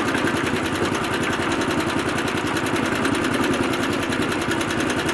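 Concrete mixer truck's diesel engine running steadily with a fast, even pulsing.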